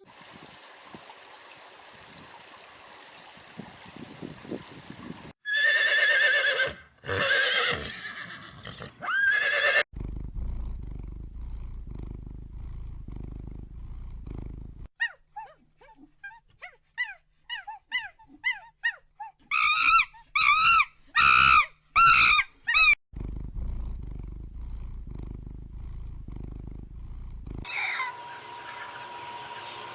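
A string of different animal calls cut together from separate clips. There are loud calls about a fifth of the way in, then a run of short high chirps, then a burst of loud repeated calls. Low rumbling noise comes between them.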